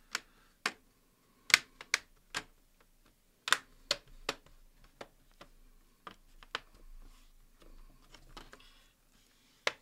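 Plastic screen bezel of an Acer Chromebook 15 CB3-532 being pressed onto the display lid, its clips snapping into place in a string of sharp, irregular clicks, with one last click near the end.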